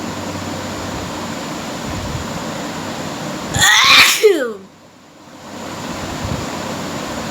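A woman sneezes once, loudly, about three and a half seconds in; the sneeze lasts about a second and ends with a falling pitch. A steady background hiss runs under it.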